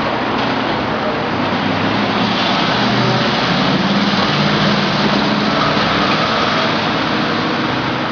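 Steady vehicle noise: an even rush of road noise with a low hum underneath.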